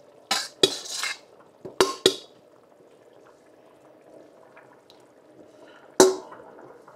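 Metal utensil knocking and scraping against a large pot as seasoned sausage and pork are stirred into the chili: a few clanks in the first two seconds, a quiet stretch, then one sharp clank about six seconds in.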